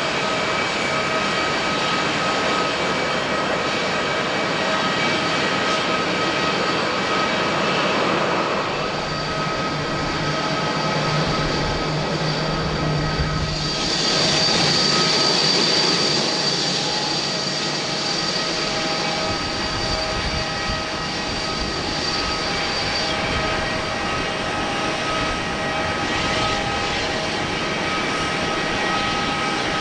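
Boeing 787 Dreamliner jet engines running: a steady rush of noise with thin whining tones. About fourteen seconds in the sound changes abruptly, becoming brighter and a little louder with a strong high whine.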